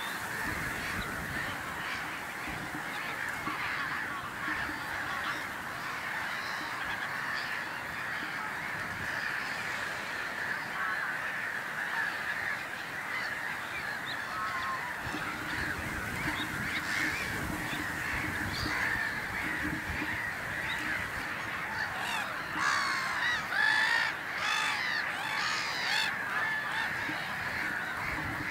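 A colony of black-headed gulls calling without pause: a dense chatter of many harsh, overlapping calls, with louder, nearer calls for a few seconds near the end.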